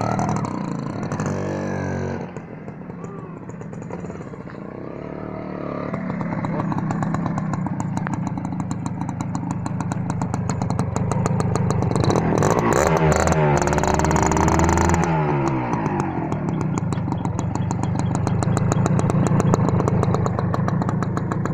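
A 1992 Honda CDI motorcycle engine running as it is ridden. Its revs dip and quieten early on, then build again. Its pitch rises and falls a few times in the middle as the throttle is worked, and it then runs on steadier and louder.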